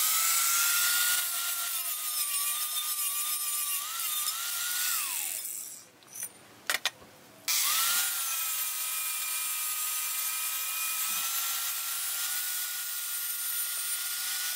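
Angle grinder deburring the freshly cut end of a metal tube: a steady motor whine over a grinding hiss. About five seconds in it spins down with falling pitch. A couple of knocks follow in a short pause, then the grinder starts up and grinds again.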